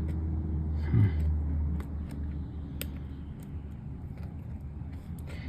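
A steady low rumble that eases after about two seconds, with a few faint sharp clicks of small plastic MacBook keycaps being handled, and a brief low vocal sound about a second in.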